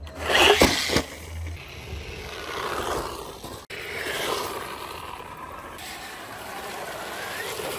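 Overmax X-Hooligan 1:10 electric RC car driving over wet paving and fallen leaves: tyre and splash noise with a motor whine that rises and falls, and two sharp knocks within the first second.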